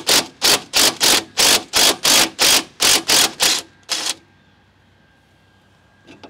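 Ratchet with a 14 mm socket run back and forth in quick strokes, backing the nut off a sway bar link stud: sharp bursts of clicking about three times a second that stop about four seconds in once the nut is loose.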